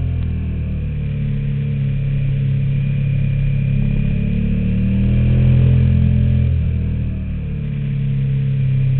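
KTM Super Duke's V-twin engine running at road speed, its pitch rising and falling with the throttle and dipping about six and a half seconds in before it picks up again.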